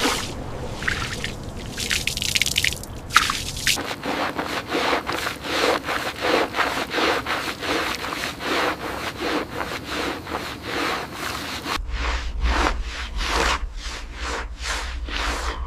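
Rhythmic scrubbing strokes on a wet surface, about two to three a second, with a steady low hum joining about three-quarters of the way through.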